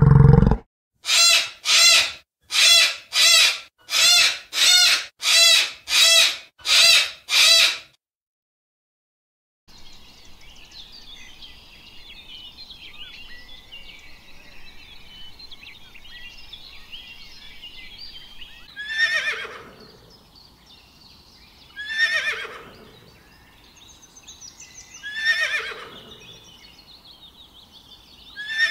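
A horse (a small pony) whinnies four times, each whinny starting high and falling in pitch, over birds chirping. Earlier, a run of about ten short, identical high calls repeats evenly at about one a second.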